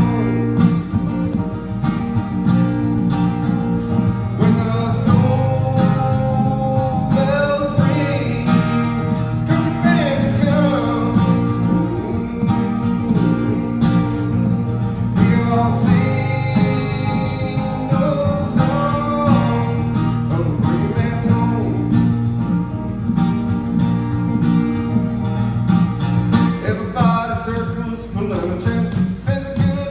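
A live country-gospel song, a voice singing over strummed guitar.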